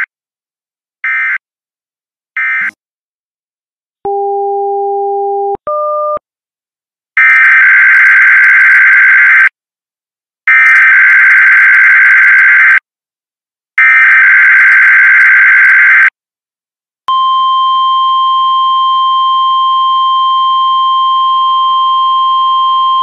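NOAA Weather Radio test signal. First come three short digital SAME data bursts, the end-of-message code. Next are two lower electronic beeps, then three long, harsh SAME header data bursts of about two seconds each. About 17 seconds in, the steady 1050 Hz weather radio warning alarm tone starts and holds for about seven seconds.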